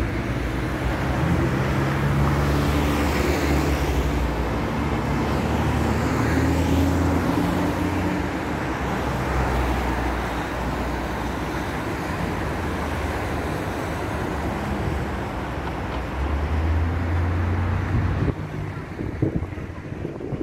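Steady city street traffic: cars running past with a low engine hum. The traffic noise drops off a couple of seconds before the end.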